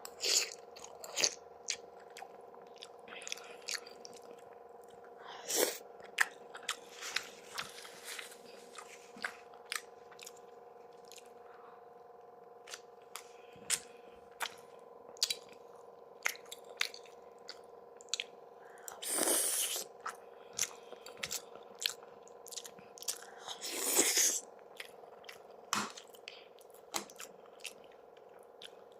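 Close-miked mukbang eating of sarmale with sour cream, bread and hot peppers: wet chewing and mouth clicks punctuated by bites. Two longer, louder crunching bites come about two-thirds of the way in and again near the end. A faint steady hum runs underneath.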